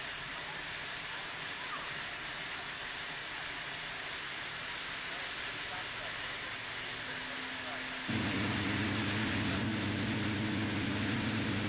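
Steam locomotive standing with steam hissing steadily from it. A little after eight seconds in, a louder, steady low hum sets in and keeps going, the engine's "bit of a chesty cough".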